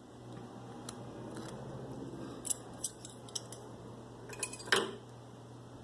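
Metal kitchen utensils clinking and tapping against metal cookware in a series of light, scattered clinks, the loudest a little before the end, over a faint steady hum.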